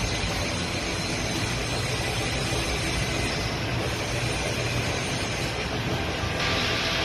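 Steady mechanical drone of a metal lathe in a machine shop. About six seconds in, a louder hiss joins it.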